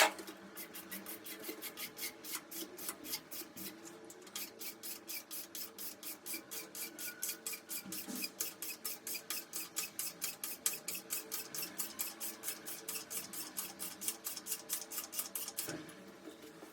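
A sharp click, then a hand tool rasping back and forth on metal or plastic in steady strokes, about four a second, in the way of hand sawing or filing; the strokes stop about a second before the end.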